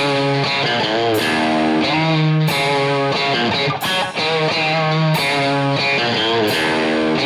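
Intro music: guitar-led rock with held chords that change in an even repeating pattern, about every second and a bit.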